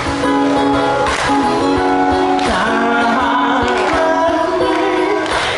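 A man singing into a microphone while strumming a ukulele, his voice holding long notes that bend and change pitch over the strummed chords.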